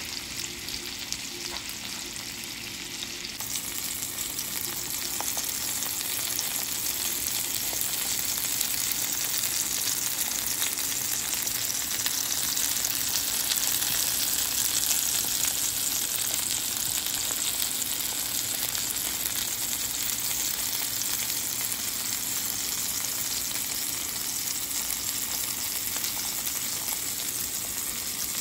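Seasoned pork chops frying in hot peanut oil in a skillet, a steady sizzle with fine crackling that grows louder a few seconds in. The chops are searing on their first side before being flipped.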